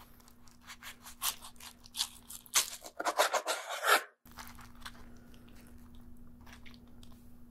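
Knife cutting down through a crunchy Hot Cheetos-crusted cheeseburger: a run of sharp crackling crunches, densest and loudest about three seconds in, that cuts off abruptly just after four seconds. Then a few faint crackles over a steady low hum.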